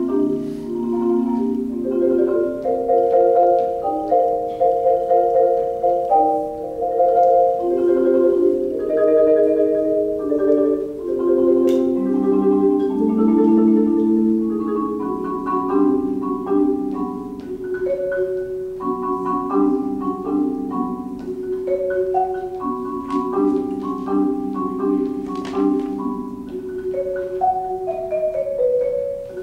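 Solo marimba played with four mallets: rolled, sustained chords in the lower-middle range with a melody of struck notes moving above them.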